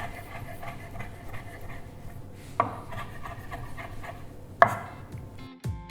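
Knife mincing boiled eggs on a cutting board: a run of quick light chopping taps, with two louder strokes. Guitar music starts near the end.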